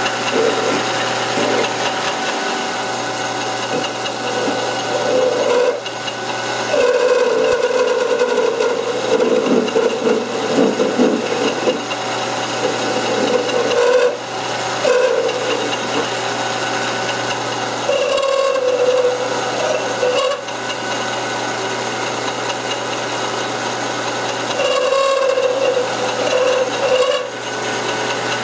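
Metal lathe running steadily while the cutter of a ball-turning attachment turns a sphere on an aluminium workpiece. The cutting noise comes and goes as the cutter is swung around the radius, with a few brief dips. The cut ran with some tool chatter.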